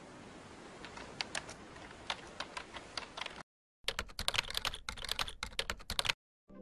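Typing on a computer keyboard: quick, irregular key clicks, faint over a light hiss at first, then a louder run after a short break about halfway through.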